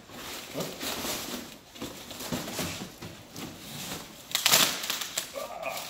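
Brown packing paper and plastic wrap crinkling and rustling in irregular crackles as they are pulled off a new foam mace, with a louder crackle about four and a half seconds in.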